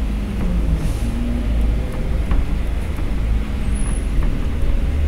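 Low, steady rumble, with a few faint clicks over it.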